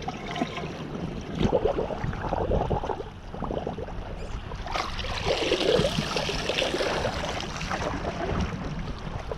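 Rustling and knocking from a body-worn action camera rubbing against clothing as the wearer walks.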